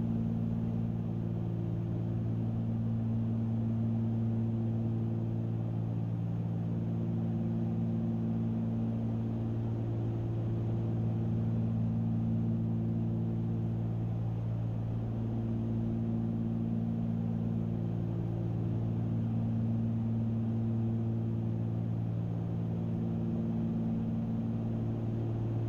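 Cessna 310Q's twin six-cylinder piston engines and propellers droning steadily in cruise, heard from inside the cabin as an even, low hum with some of its tones slowly waxing and waning.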